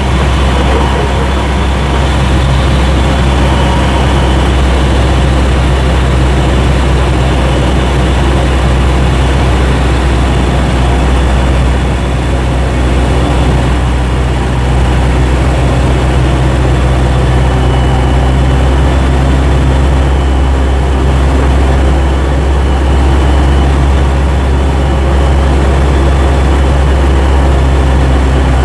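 Cessna 172's piston engine and propeller running at steady power, heard from inside the cabin as a loud, unchanging drone.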